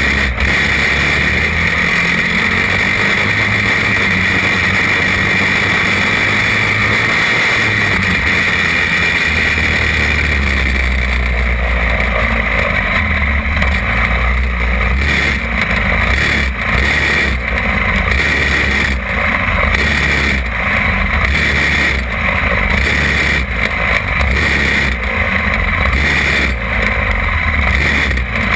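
Racing champ kart's small engine running hard, heard close from on board the kart. From about eleven seconds in the note dips briefly about once every second or so.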